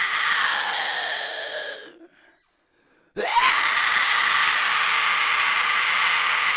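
Man's vocal fry scream, a distorted metal scream: one scream already under way slides down in pitch and dies away about two seconds in, and after a short pause a second one starts about three seconds in and is held on one note, stretched out.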